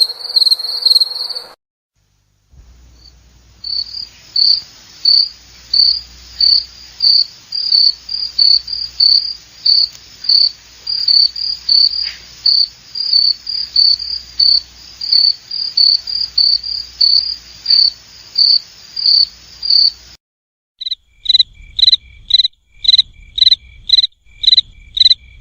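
Crickets chirping: high, short chirps repeated steadily, one to two a second. The chirping stops for about a second twice, and after the second break it comes back slightly lower-pitched and a little faster.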